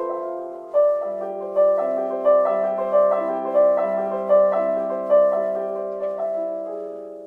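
Slow, gentle piano music: a melody of struck notes over held chords, a new note roughly every second, dying away near the end.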